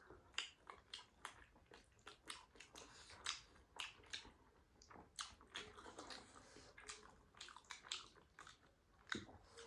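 Faint chewing of momo dumplings, with irregular mouth clicks a few times a second.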